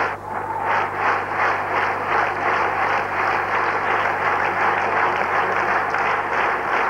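Audience applause clapping in unison, in a steady rhythm of about three claps a second.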